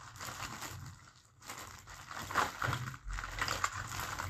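Rustling and crinkling with small clicks and knocks, as makeup items and their packaging are rummaged through by hand.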